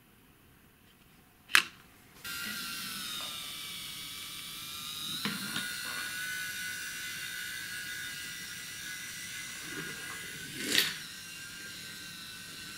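Small electric motor of a battery-powered Brio toy train whining steadily as it runs along wooden track, its pitch dipping briefly and then holding. A sharp click about a second and a half in, a few small clicks in the middle and a louder clack near the end.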